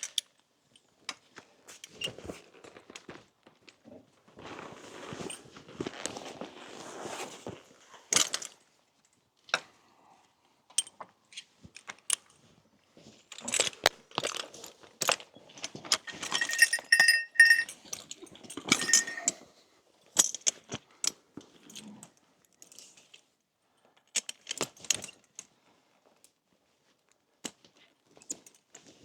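Metal horse harness fittings and chains clinking and jangling, with rustling and scattered knocks. The clinking is loudest in a ringing burst just past the middle.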